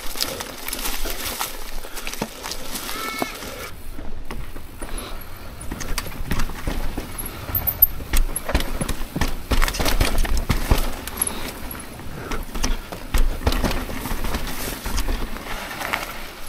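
Mountain bike riding down a rough trail: irregular clatter of knocks and rattles as the tyres, chain and frame are jolted over the ground.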